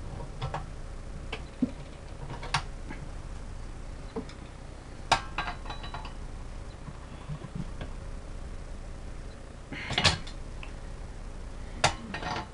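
Scattered metal clinks and knocks of channel-lock pliers and fittings against a small steel air tank as a pressure switch is turned tight on it. The sharpest knocks come about five seconds in and in a short cluster about ten seconds in.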